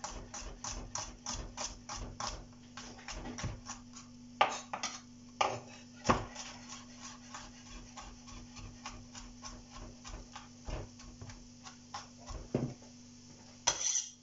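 Chef's knife chopping garlic cloves finely on a plastic cutting board: quick, uneven knocks of the blade on the board, about three to four a second. Near the end comes a louder clatter as the board is tipped and the chopped garlic is swept off with the knife.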